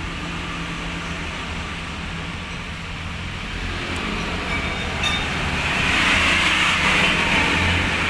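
Large vehicle engine idling with a steady low hum, while a broad rushing noise swells louder in the second half and eases near the end.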